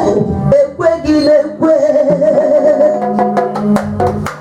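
Live church music: a voice sings a long wavering note over steady held bass notes, with sharp percussion hits coming in during the second half.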